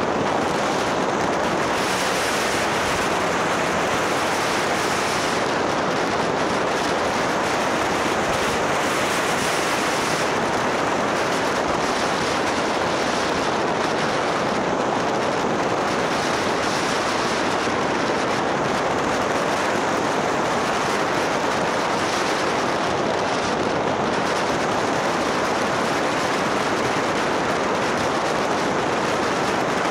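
Steady rush of wind over the microphone of a moving motorcycle.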